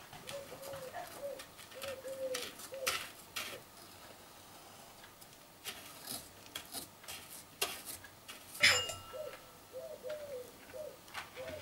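A dove cooing in short repeated phrases, heard twice. Between them come the scrapes and light clicks of a knife cutting away a shortbread cake's crumbly edges, with one sharp metallic clink, the loudest sound, about nine seconds in.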